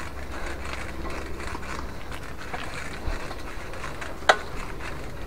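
Bicycle riding along an asphalt path: a steady low rumble of tyres and movement, with one sharp click, a rattle of the bike, about four seconds in.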